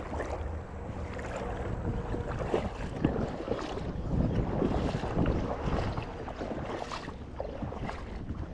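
River water sloshing and splashing around someone wading, with wind buffeting the microphone.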